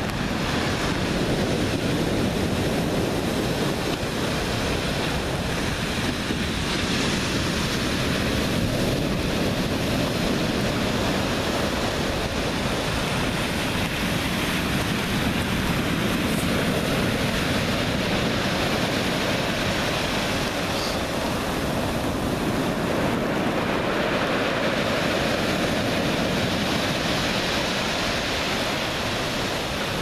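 Rough winter sea surf breaking and washing up a pebble shore, a loud, steady rush that swells and eases slowly, with wind buffeting the microphone.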